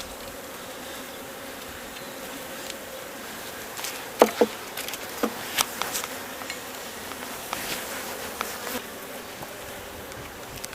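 A honeybee colony humming steadily from an open hive, with a series of sharp knocks and clicks from about four seconds in as frames are shifted in the hive box.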